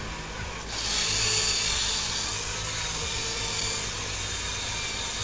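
Remote-control drift car's small electric motor running with a steady whine, getting louder about a second in as the car drives.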